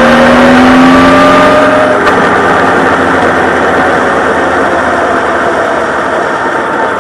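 Honda CB1300 Super Bol d'Or's inline-four engine pulling up through the revs under way, its note rising for about two seconds. Then the engine note drops away suddenly and a steady rushing noise takes over.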